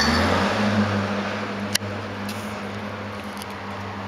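A vehicle engine running with a steady low hum over background noise, with one sharp click just under two seconds in.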